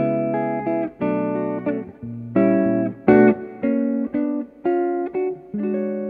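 Jazz archtop guitar playing a slow ballad in chords, each chord struck and left to ring, changing every half second to a second.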